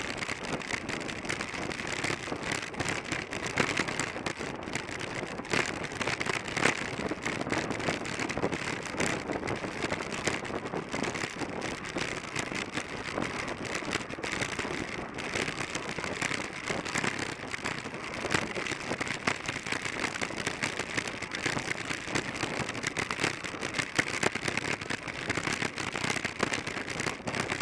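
Steady rushing noise of riding in a track-bike pack at about 28 mph, from wind and tyres on the concrete track, with a dense crackle throughout.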